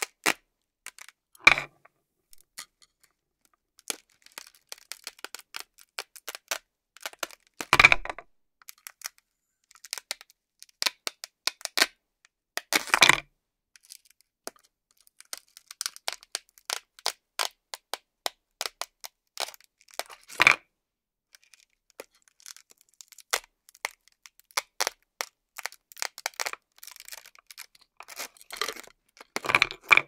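Velcro hook-and-loop ripping as velcro-backed toy food pieces are pried off a fabric disc with a toy knife and fork: about five louder short tearing rips, spread out, among many light clicks and taps.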